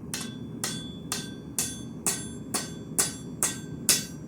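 Blacksmith's hand hammer striking hot steel bar on an anvil in a steady rhythm, about two blows a second, each blow ringing. A low steady rumble runs underneath.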